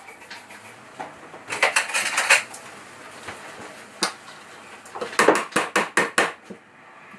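Hammer blows on pine bed-frame timber: a quick run of taps about a second and a half in, a single blow around four seconds, then another fast run of taps just after five seconds.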